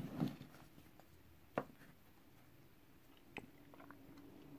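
Two light clicks about two seconds apart, from plastic Blu-ray cases being nudged into line on a wooden tabletop, with faint rustling in between.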